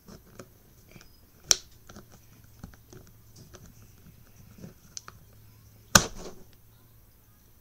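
Plastic Rubik's cube pieces clicking and scraping against a small flathead screwdriver as a piece is forced up and over the core's lip, with two sharp snaps about a second and a half in and again about six seconds in.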